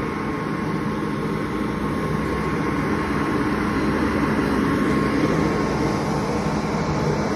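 Siemens SC-44 Charger diesel locomotive running while it stands close by, a steady engine drone with a constant hum on top.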